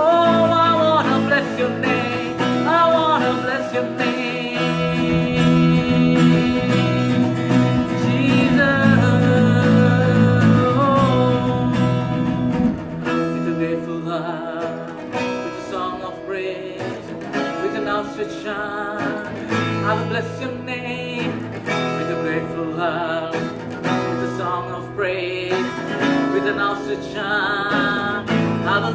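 A man singing while strumming chords on an acoustic guitar, the singing and strumming softer from about halfway.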